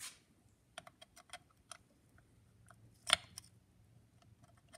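Small metallic clicks and ticks of a thin screwdriver working at a screw on the governor of an antique Victor phonograph spring motor, a handful close together early, then one much louder clack about three seconds in.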